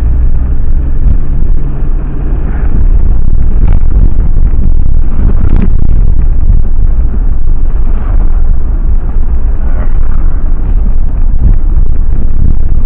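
A van driving, heard from inside the cab: a loud, steady low rumble of engine and road noise.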